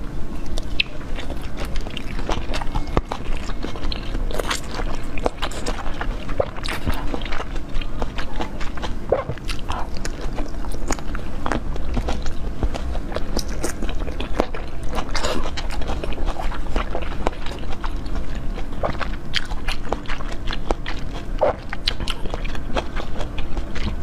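Close-miked biting and chewing of coated jelly sweets: irregular mouth clicks and smacks that come and go throughout, over a steady low hum.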